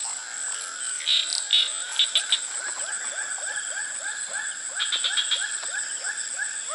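Frogs calling: a fast, even run of short rising croaks, about four a second, over a steady high-pitched whine. A few short, sharp, louder sounds come between about one and two and a half seconds in.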